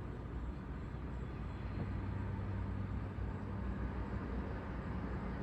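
Steady low mechanical drone with a hum that grows a little stronger about two seconds in.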